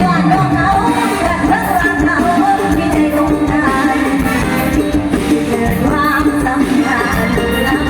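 Band music with singing: a Thai popular song played loud, with a sung melody over the band.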